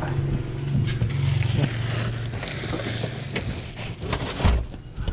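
Plastic bags rustling and objects knocking as luggage and a desktop computer case are shoved and rearranged in a car's packed cargo area, with a heavy thump about four and a half seconds in. A low steady hum runs underneath and fades about halfway through.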